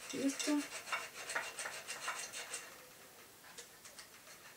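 Knife sawing through a halved orange on a plate, with the blade and fork scraping and clicking against the plate in quick, irregular strokes that thin out past the middle.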